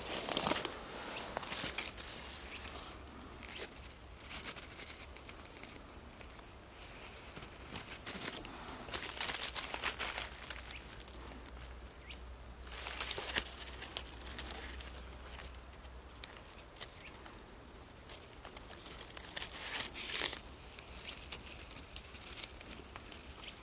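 Dry fallen leaves and forest litter rustling and crinkling in short bursts every few seconds, as the camera is handled close to the ground.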